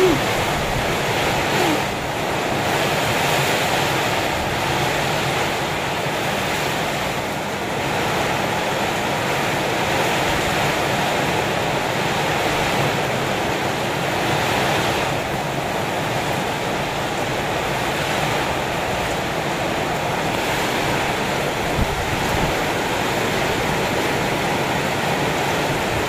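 Heavy typhoon rain pouring steadily onto roofs and concrete, a dense continuous hiss.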